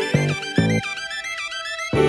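A short musical transition sting: two or three low hits, then a run of quick gliding high notes, before full music comes back in near the end.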